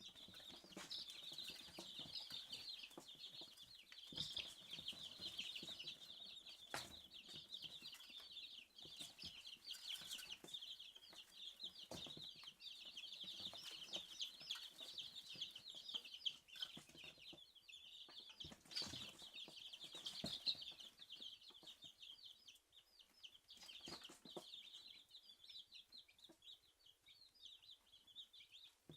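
A brood of three-day-old Dominique chicks peeping continuously, many short high chirps overlapping, with a few sharp knocks scattered among them.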